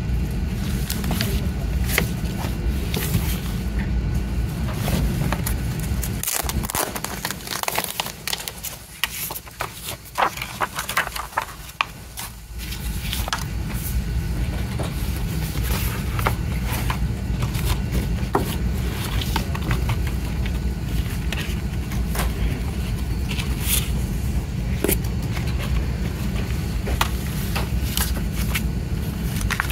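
A Blu-ray box set being handled: plastic wrap crinkling, with scattered clicks and scrapes from the cardboard slip case and the plastic disc case. Under it runs a steady low rumble that drops away for several seconds in the middle.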